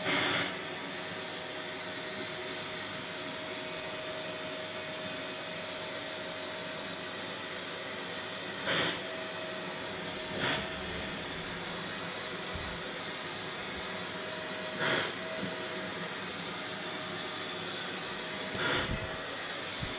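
Vacuum cleaner running steadily, its hiss swelling briefly about five times, as it is used to vacuum a Maine Coon cat's coat.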